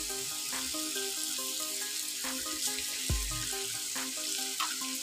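Sliced onions, tomato and green chilli sizzling steadily in hot oil in an iron wok.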